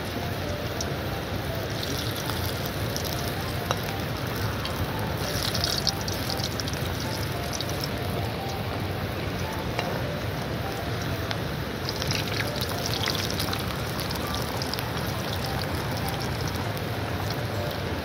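Steady rushing of a nearby river, a constant noise much like heavy rain, with brief hissy patches about five and twelve seconds in.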